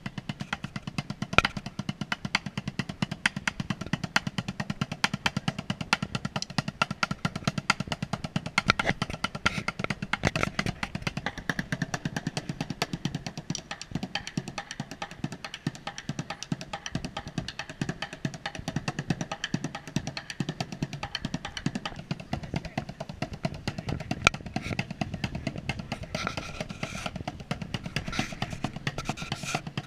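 Street drumming with sticks on an improvised kit of upturned plastic buckets and metal cooking pots, played in fast, dense, continuous rhythms.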